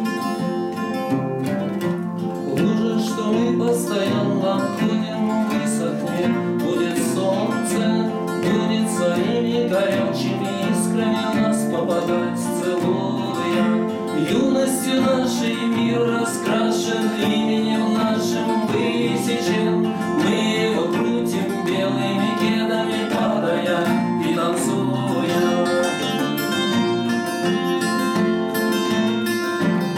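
Duet of two acoustic guitars, a nylon-string classical guitar and a steel-string guitar with a capo, playing interwoven fingerpicked and strummed lines. A man's singing voice joins for part of it.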